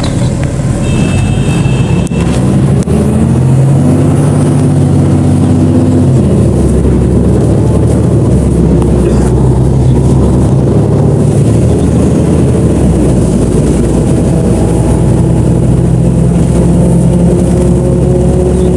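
Engine of a BonLuck DD6181S32 articulated bus running under way, a loud steady drone. Its note swells and then drops back several times, about 4, 10 and 16 seconds in.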